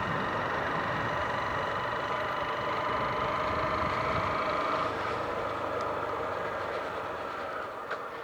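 150 cc motorcycle engine running steadily while riding, with wind rushing over the microphone. The engine hum eases off slightly after about five seconds.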